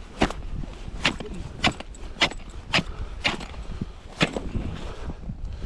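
Footsteps crunching in snow on ice at an even walking pace, roughly one or two steps a second.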